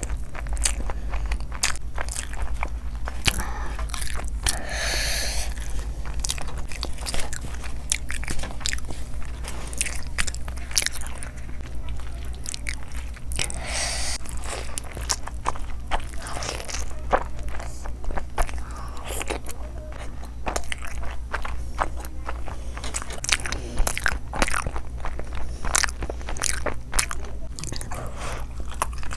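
Biting into and chewing fried chicken leg pieces coated in curry: a run of short crunches and mouth clicks, over a steady low hum.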